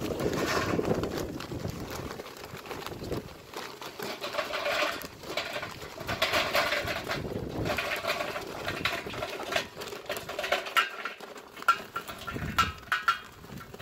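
Charcoal briquettes pouring from a paper bag into a metal charcoal basket, clattering and rattling against the metal as the bag rustles.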